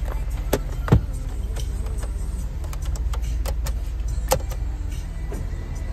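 Plastic clicks and knocks from a car's sun visor and rearview mirror being handled, the sharpest about a second in and another just after four seconds, over a steady low rumble inside the car.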